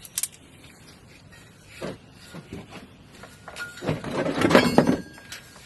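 Metal parts and hand tools clinking and scraping during under-car work, bolting up a driveshaft loop. A sharp click near the start, a few small knocks about two seconds in, then a longer stretch of clattering and scraping with brief metallic rings from about three and a half to five seconds.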